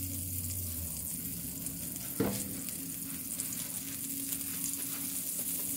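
Butter sizzling and frying in a pan, a steady hiss, with a single sharp clink about two seconds in.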